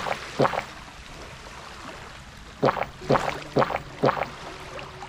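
A man swallowing a soft drink in gulps from a small glass bottle: one gulp about half a second in, then four more in quick succession from about two and a half seconds in, over a steady faint background hiss.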